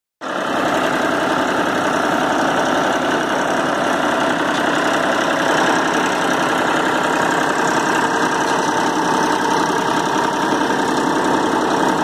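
Massey Ferguson 7250 DI tractor's 50 hp three-cylinder diesel engine running steadily at a constant speed.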